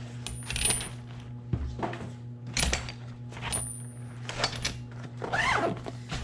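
Metal hand tools clinking against each other as the tool roll is handled: a string of separate sharp metallic clinks, some with a brief high ring.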